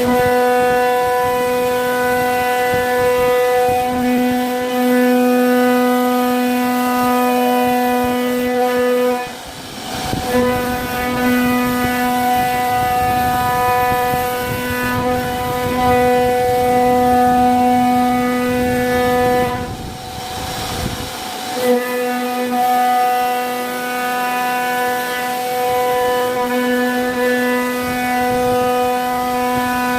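CNC router spindle whining at a steady pitch with a stack of overtones, its strength swelling and fading as the cutter works the wood; the whine breaks off twice for about a second.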